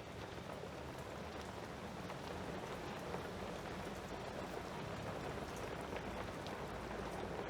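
Steady rain falling outside, an even hiss of many small drops.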